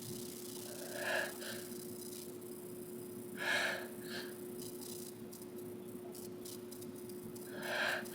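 Three short, muffled stifled sneezes a few seconds apart, each followed by a fainter catch of breath. A steady low hum runs underneath.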